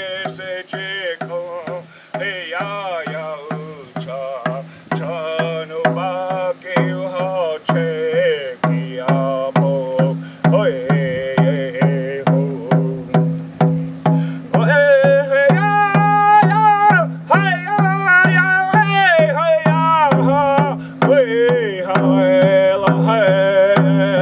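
Background music: a steady drum beat of about three strokes a second under a wavering melody line that holds longer notes in the second half.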